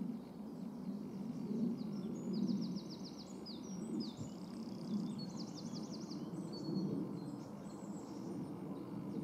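Songbirds singing, with two quick runs of high, rapidly repeated falling notes in the middle, over a steady low rumble.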